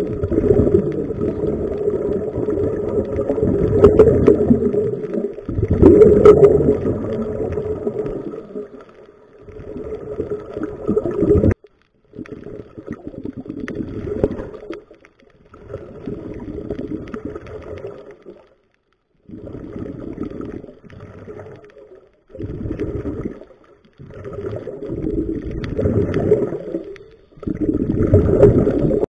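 Scuba divers breathing out through their regulators underwater: a gurgling rush of exhaust bubbles that comes in repeated bursts of a second or two, with short pauses between breaths.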